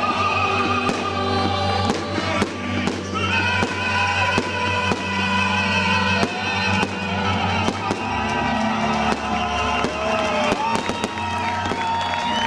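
Fireworks bursting in rapid, irregular bangs throughout, over loud music with long held notes and a steady bass.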